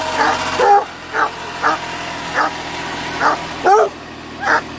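Redbone coonhound puppies yipping: about eight short, high-pitched yips at irregular spacing, a couple of them sliding in pitch.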